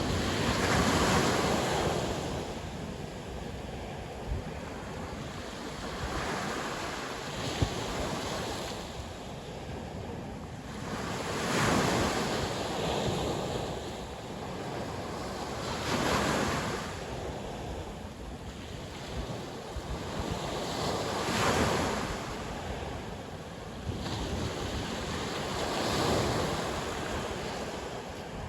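Sea waves washing ashore one after another, about one every five seconds. Each wave is a swell of surf noise that builds and fades.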